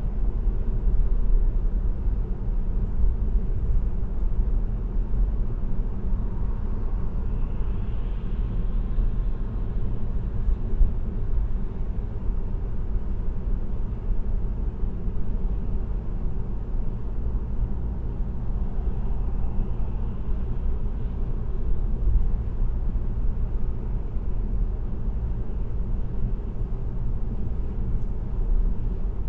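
Steady low road rumble of a car cruising on an expressway, tyre and engine noise picked up by a dashcam. A faint, higher hiss swells briefly twice.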